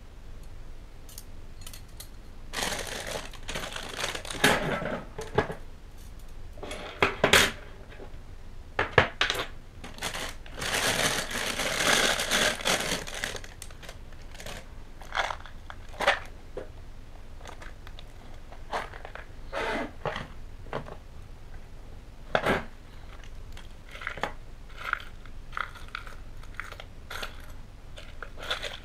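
Vintage Meccano parts being handled: metal strips and small parts clinking and tapping against each other and the bench, with plastic wrapping crinkling in two longer stretches, a few seconds in and again around the middle.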